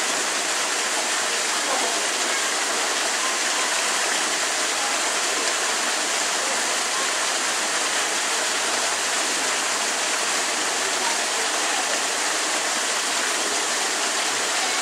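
Steady rush of running water, unchanging in level throughout.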